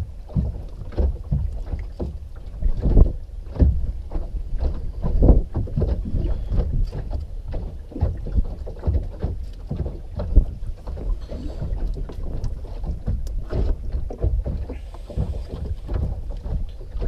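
Irregular knocks and scrapes of a knife filleting a whiting, the blade grating along the backbone, over a low rumble of wind on the microphone aboard a small boat.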